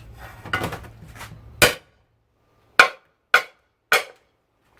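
Hammer blows knocking pressed-in steel rivets out of a cast aluminium steamer housing: a series of six or seven sharp metal knocks, irregularly spaced.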